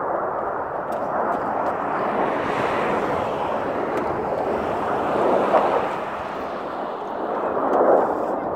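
Engine roar of a formation of aircraft flying overhead: a steady rushing sound that swells briefly about five seconds in and again near the end.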